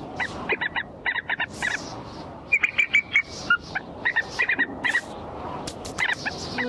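Eaglet chick squawking in short, high calls that come in quick groups of three or four, with a few sharp clicks near the end.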